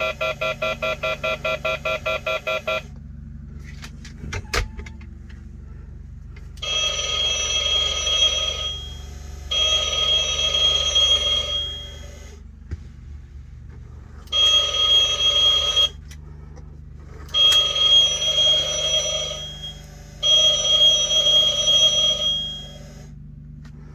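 Novelty Halloween skull telephone's electronic ringer: a fast pulsing tone that stops about three seconds in, then ring bursts about two and a half seconds long, a pair and then three more, with short pauses between.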